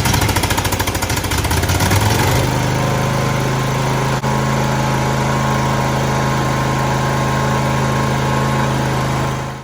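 Husqvarna GTH 2654 riding mower's engine running on choke just after starting. It pulses unevenly for about two seconds, then settles into a steady run.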